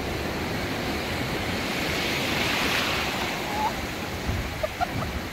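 Ocean surf washing in around a wader in shallow water, a steady rushing hiss that swells as a wave runs through about two to three seconds in.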